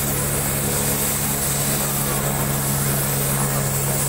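Helicopter idling on the ground with its rotor turning, a steady low hum of engine and rotor with a thin high whine on top.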